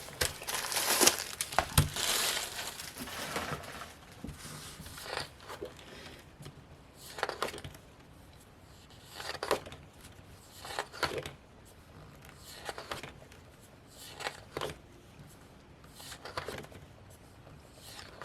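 Packaging crinkling as it is handled and pulled off, then a series of short papery swishes about every two seconds as the pages of a desk calendar are turned.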